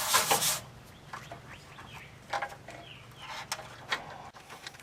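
Rosin flux pen rubbed quickly against the bare wire ends: a scratchy rubbing that stops about half a second in. It is followed by faint light clicks of the wires being handled.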